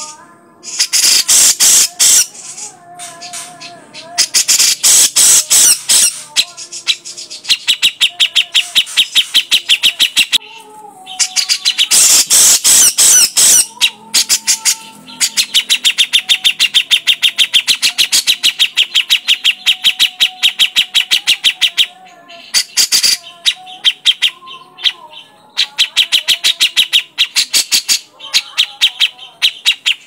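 Grey-cheeked bulbul (cucak jenggot) calling vigorously: long runs of rapid, repeated chattering notes alternating with harsh, raspy bursts, broken by short pauses.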